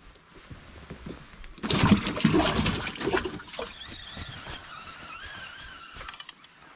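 A walleye tossed back into the lake splashes into the water about two seconds in, a loud splash that dies away over a second or so.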